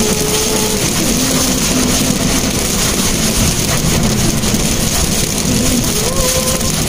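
Steady engine and road noise heard from inside the cabin of a Mitsubishi Mirage on the move in the rain, with a constant hiss of rain and wet tyres.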